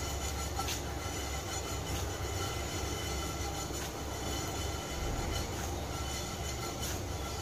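Whole spices and seeds dry-roasting in a non-stick pan on a gas stove over a low flame: a steady low rumble, with a few faint scrapes and rattles as the pan is shaken.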